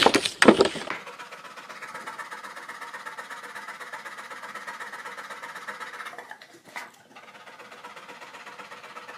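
A few loud knocks in the first second, then a large brown dog panting rapidly, a steady fast rhythm of breaths with its tongue hanging out, briefly pausing with a single click about seven seconds in.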